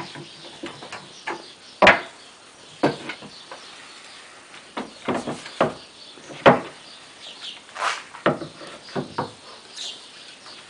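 Wooden parts of a beech spinning wheel knocking and clattering against each other and the wooden table as it is put together: a string of irregular knocks, the loudest about six and a half seconds in.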